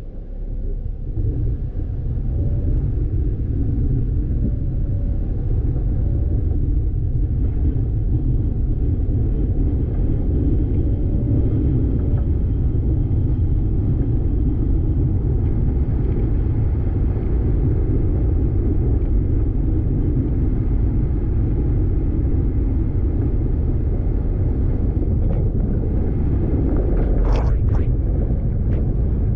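Vehicle driving on a dirt road: a steady low rumble of tyres and engine that swells over the first couple of seconds and then holds. A few sharp clicks come near the end.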